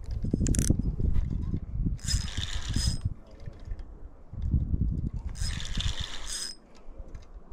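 Fishing reel being cranked in two short spells of about a second each, its gears whirring and clicking, as a possible trout is reeled in.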